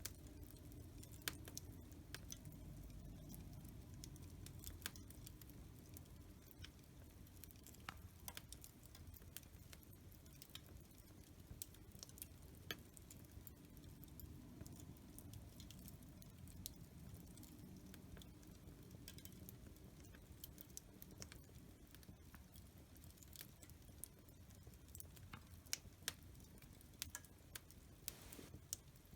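Wood fire in a fireplace crackling softly: irregular sharp pops and snaps over a faint low rumble of the flames, the snaps coming thicker near the end.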